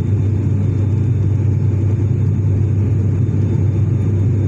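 Cabin noise of a Wings Air ATR 72 turboprop airliner in flight: a loud, steady drone of the engines and propellers with a deep, even hum underneath.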